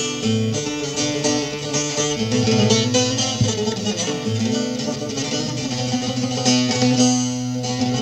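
Bağlama (long-necked Turkish saz) played solo: a busy plucked melody over steady ringing drone strings.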